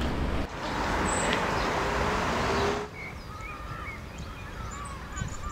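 A steady rushing outdoor noise for about the first three seconds, which drops away suddenly; after that, small birds chirp and twitter in quick, short calls.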